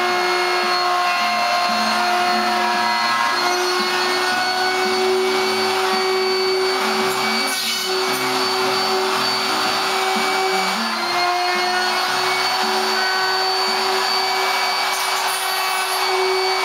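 Porter-Cable router running steadily at high speed as its bit cuts chambers into a redwood surfboard stringer. The whine dips slightly in pitch now and then as the bit takes load.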